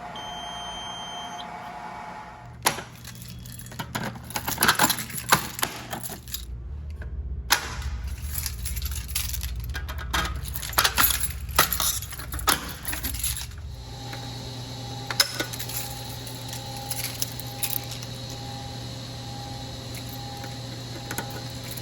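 Notifier AFP-400 fire alarm control panel's buzzer sounding a steady tone during its lamp test, stopping about two seconds in. Then about ten seconds of metallic clinking and sharp clicks, and after that a faint tone pulsing about once a second over a low hum.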